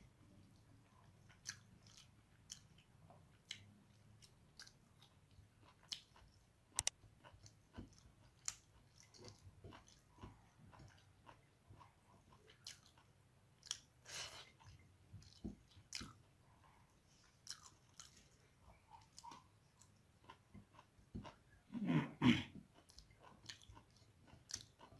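Close-miked chewing of a mouthful of rice and beef curry eaten by hand, with scattered small clicks and smacks. A louder throaty sound comes about three-quarters of the way through.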